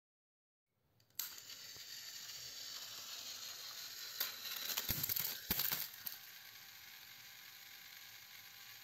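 Battery-powered plastic toy train motors start whirring about a second in. Around the middle there is a burst of clattering and knocks as the toy engine and toy fire engine tumble off the track, then a quieter steady motor whir goes on while they lie on the mat.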